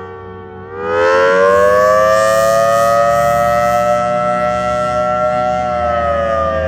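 Federal Signal Thunderbolt 1003 dual-tone civil defense siren sounding the attack signal, a wavering wail. Its falling, fading pitch swings sharply up and louder about a second in, holds high for several seconds, then begins to fall again near the end.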